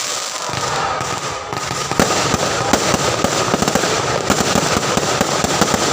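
Fireworks display: a dense, continuous crackling and popping of bursting shells, with a sharper bang about two seconds in.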